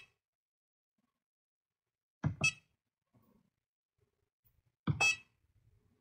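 Handheld oscilloscope key beeps: two short high electronic beeps, each with a click of the button just before it, about two and a half seconds apart.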